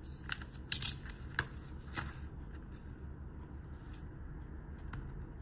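Small clicks and taps of a smartwatch strap and its cardboard packaging being handled, a quick cluster in the first two seconds and only faint ones after, over a low steady hum.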